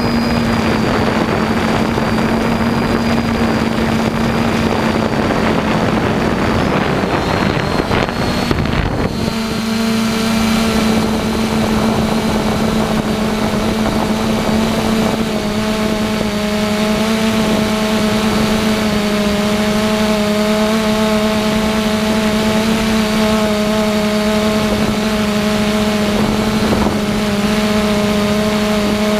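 A camera drone's propellers and motors hum steadily at one pitch, with wind buffeting the microphone that drops away about nine seconds in.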